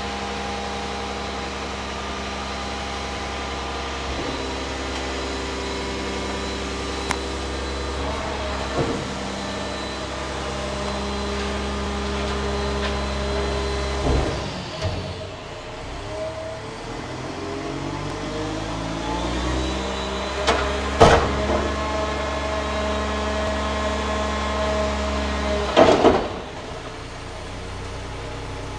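Diesel engine of a Mack/McNeilus Pacific front-loader garbage truck running steadily, then changing pitch and speeding up about halfway through as the hydraulic arms lift the Curotto Can up over the cab to dump it. Loud metal clanks and bangs come about halfway, about two-thirds of the way in, and near the end as the can is raised and tipped.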